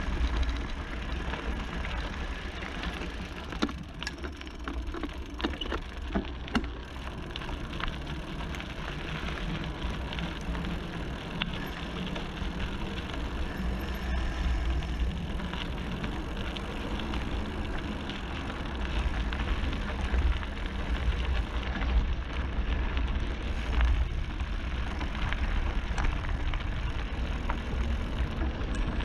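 Wind rushing over the camera microphone and tyres crunching over gravel as a Scott Spark Comp mountain bike coasts downhill, with scattered clicks and rattles from the bike.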